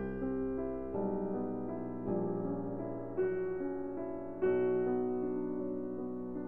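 Piano music: a slow melody over chords and low bass notes, each note struck and left to ring.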